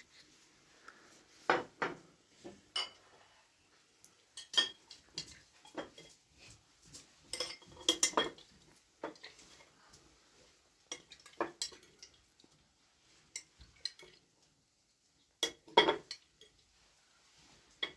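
Dishes and cutlery clinking and knocking in scattered, irregular clusters of sharp clinks, the loudest a couple of seconds before the end.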